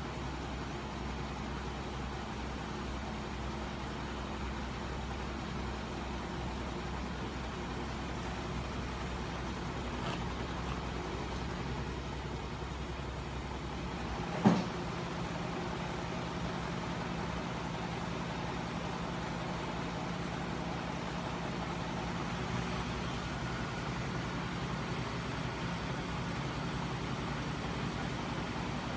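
A homemade crankshaft-and-flywheel magnet machine, driven by a small electric motor, running with a steady mechanical hum. About halfway through there is one sharp knock, after which the deepest part of the hum drops away.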